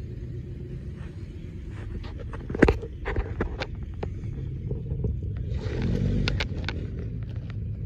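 New Holland T1510 compact tractor's diesel engine idling with a steady low rumble. A single sharp knock comes about two and a half seconds in, and a few clicks and a short rustle come near the six-second mark.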